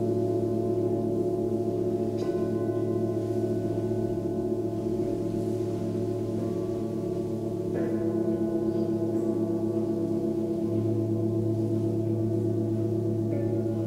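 Several seven-metal Tibetan singing bowls ringing together in long, overlapping tones that waver with a slow beat. Fresh soft strikes come about two seconds in, near eight seconds and near the end, and a deeper tone swells in after about ten seconds.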